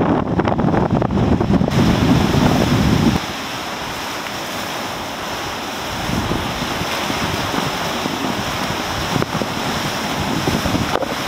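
Wind buffeting the microphone in heavy low rumbles over the sea. It stops abruptly about three seconds in and gives way to surf breaking and washing over a rocky shore, a steady rushing hiss that swells and eases with the waves.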